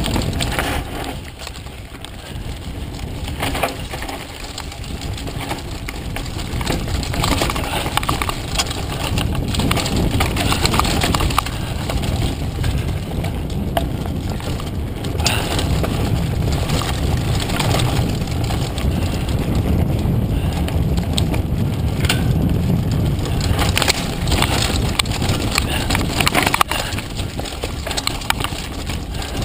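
Mountain bike descending a rough dirt singletrack at speed: a continuous rumble of wind over the GoPro's microphone and tyres on dirt, with the bike clattering and rattling over bumps and roots.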